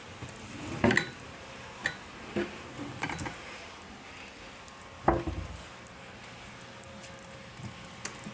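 Scattered knocks and light clinks of small hard objects being handled, about half a dozen over several seconds; the loudest come about a second in and about five seconds in.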